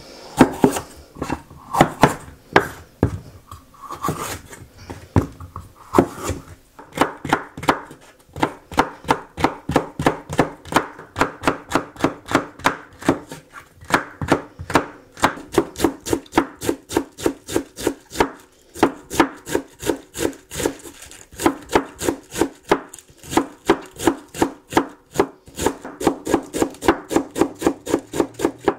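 Kitchen knife cutting on a wooden cutting board, slicing bell peppers into strips and then shredding cabbage, each stroke knocking on the board. The first several seconds hold slower, uneven cuts; after that comes a steady quick rhythm of about three to four strokes a second.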